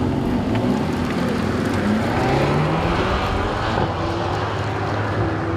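A supercar's engine accelerating, its note rising steadily over a wash of noise.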